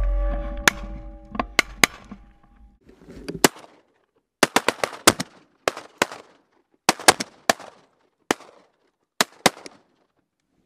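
Duck hunters' shotguns firing, many shots in a ragged volley. Some shots come in quick clusters, with short lulls between them; there are too many for a single gun, so several hunters are shooting.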